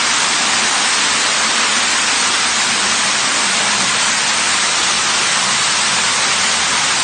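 Loud, steady rush of floodwater pouring down inside a building.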